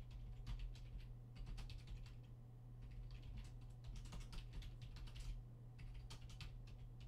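Faint typing on a computer keyboard: irregular key clicks over a steady low hum.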